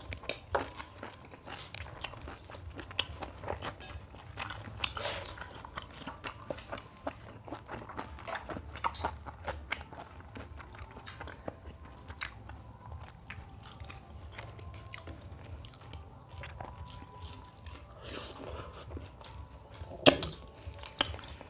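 Two people eating mutton biryani by hand: chewing and biting into mutton pieces, with many small wet mouth clicks throughout and two louder smacks near the end.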